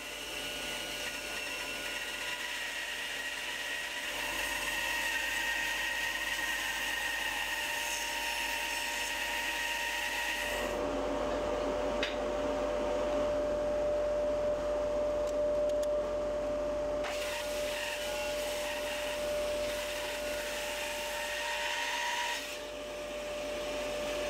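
Homemade bandsaw ripping a small hardwood log freehand, the blade cutting steadily through the wood over the machine's running hum. The sound changes abruptly about eleven seconds in, when a steady high whine comes in and holds.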